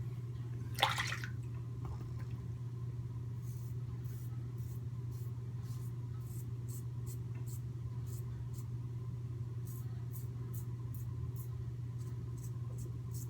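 Merkur 34c safety razor with a Polsilver blade cutting stubble through lather against the grain: short, crisp scratching strokes repeated a few times a second, over a steady low hum. A brief rustling burst about a second in.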